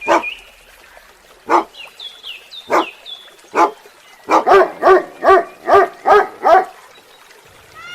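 Dog barking: four single barks about a second apart, then a quick run of about seven barks near the middle. Faint high chirps sound behind the first few barks.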